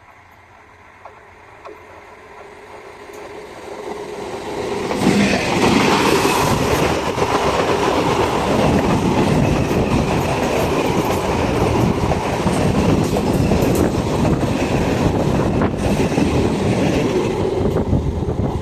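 Passenger train approaching and passing at speed: the rumble and clatter of its wheels over the rails builds up and becomes loud and continuous from about five seconds in.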